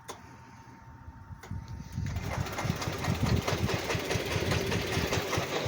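Small gasoline engine comes in about one and a half seconds in and runs with a rapid, rough pulsing, growing louder by two seconds in.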